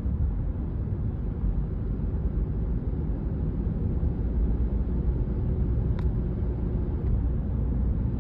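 Car engine and road noise heard from inside the cabin while cruising, a steady low rumble: the regular engine sound, with the small engine tick almost inaudible. One faint click about six seconds in.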